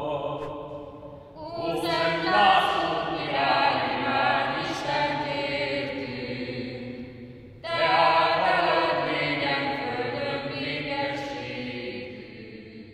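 Chant-like singing in slow, long-held phrases. A new phrase swells in about a second and a half in, another near eight seconds, and the singing fades away toward the end.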